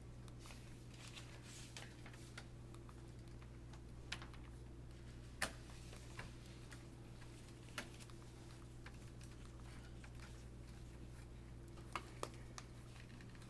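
A few scattered sharp clicks and taps of hands at work on a Dell Studio 1730 laptop under repair, the loudest about five seconds in and a pair near the end, over a steady low hum.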